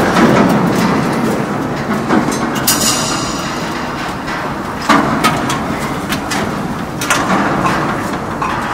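Footsteps and knocks on scaffolding stairs with plank treads, heard as scattered sharp impacts over a loud, steady noise.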